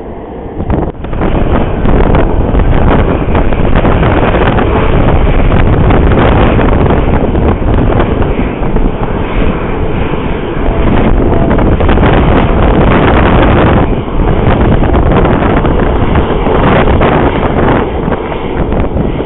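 Loud, sustained roar of a passenger jet's engines close by, with wind buffeting the microphone. The roar comes up suddenly about a second in and holds, dipping briefly near the end.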